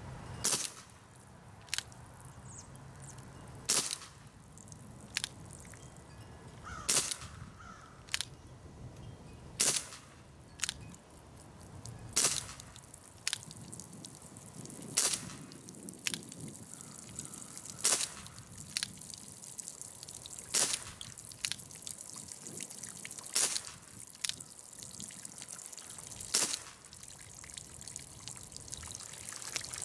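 Umarex Brodax CO2-powered .177 steel-BB revolver firing shot after shot, a sharp pop every one to two seconds or so, about twenty in all.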